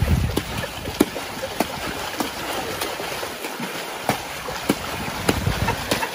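Tennessee Walking Horse wading through a shallow creek at a walk, its hooves splashing through the water about every half second over the steady rush of the stream.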